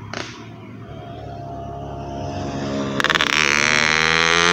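A large bus approaching, its engine running and growing louder, then its musical multi-tone air horn sounding loudly about three seconds in and holding on.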